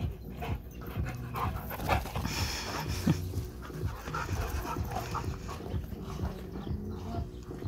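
Dogs panting hard as they chase and wrestle, with scuffling and irregular knocks and thumps throughout.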